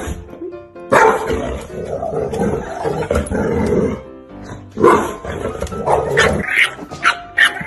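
Golden retriever barking in play at its reflection, in two long stretches starting about a second in and again near five seconds, over background music.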